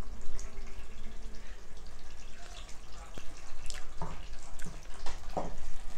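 Pork-blood stew (dinuguan) simmering in a large pot with a scattered, irregular bubbling and popping, over a steady low hum. A few louder knocks come about four and five seconds in.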